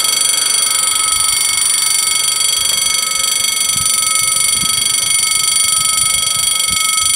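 Level crossing warning bells (two electronic bells) ringing as a loud, steady, shrill tone while the barrier booms are lowering. A few faint low knocks sound in the second half.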